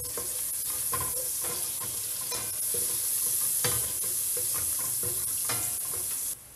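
Chopped onion and chili flakes sizzling as they fry in butter and olive oil in a stainless steel pot, with a spatula stirring and scraping against the pot. The sizzle stops abruptly near the end.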